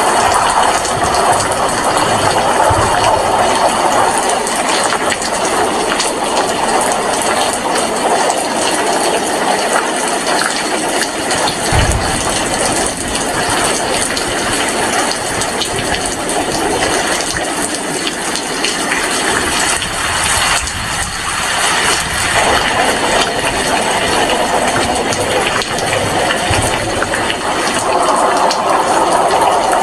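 Steady rain falling, an even hiss, with a single brief low thump about twelve seconds in.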